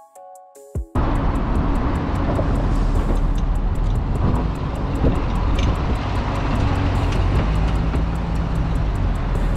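C6 Corvette's V8 engine and exhaust running loud and steady as the car rolls past close by, cutting in about a second in after a few seconds of music.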